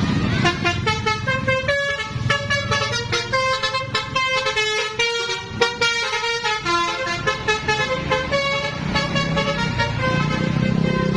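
Basuri telolet bus horn playing a quick tune of short, stepping notes, some sounding together.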